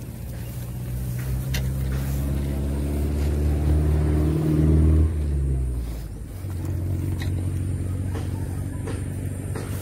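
A motor vehicle's engine passing nearby: it grows louder over the first five seconds, then drops away with a falling pitch, and a steady engine hum carries on after.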